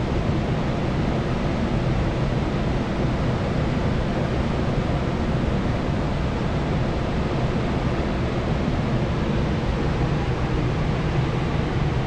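Steady, deep rushing of a large waterfall in flood, heard from afar, an even noise that does not change.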